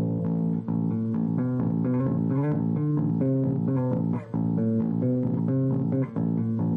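Solo electric bass guitar played live, plucking a busy run of notes and chords with several notes ringing together.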